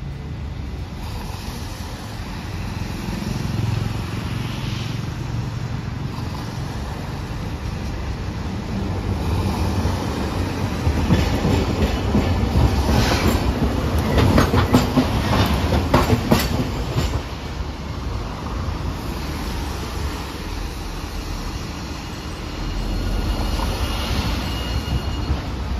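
Hiroshima Electric Railway streetcar No. 714 running past on street track, its wheels clacking over rail joints and crossings in a quick run of knocks about halfway through, with some wheel squeal, over a steady rumble.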